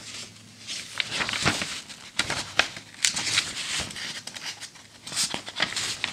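Pages of a 1940 magazine being turned by hand: the old paper rustles and crinkles, with irregular sharp crackles as the sheets flex and flop over.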